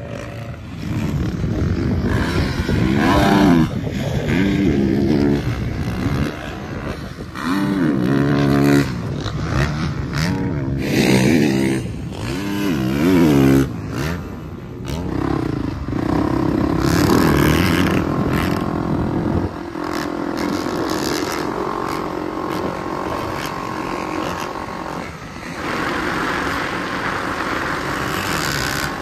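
Motocross bike engines revving up and falling back again and again, as when riding on a track, then running more steadily in the second half.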